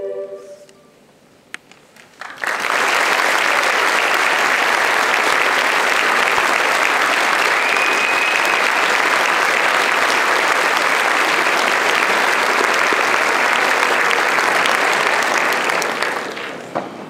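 A girls' choir's final held chord fades away in the first second. After a short hush, the audience breaks into loud, steady applause that lasts about thirteen seconds and thins out near the end.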